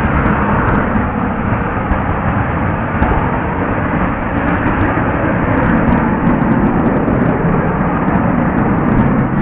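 Twin jet engines of an F/A-18 Hornet running: a loud, steady rush of jet noise that holds even throughout.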